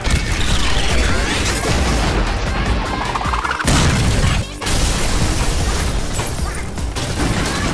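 Cartoon fight sound effects, with crashing impacts and a blast, over dramatic background music. The sound drops out briefly twice, around the middle.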